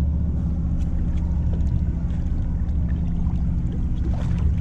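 Boat engine idling steadily, a low even hum, with light splashing of water against the hull where a striped bass is held in the water, a little stronger near the end.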